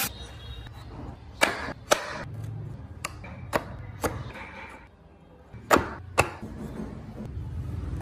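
Wooden doors of a hand-carved model car being swung open and pushed shut, giving sharp wooden clicks and knocks, mostly in pairs about half a second apart, three times over.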